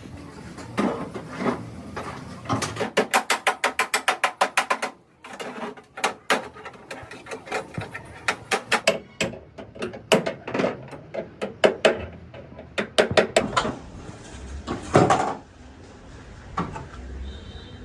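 Hammering: a quick, even run of about a dozen blows, then slower, irregular blows with short pauses.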